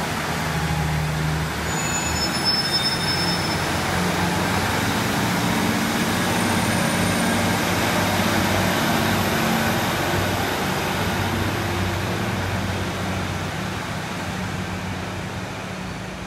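First Great Western diesel multiple-unit train pulling out of the platform, engine running with a steady low rumble that fades away over the last few seconds. A few brief high-pitched squeals come about two to three seconds in.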